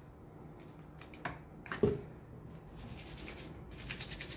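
Cotton dish towel being scrubbed dry between the hands, the fabric rubbing against itself as detergent is worked into a sauce-and-grease stain. Two short knocks come a little after the first second, the second one the loudest sound, and the scrubbing grows busier near the end.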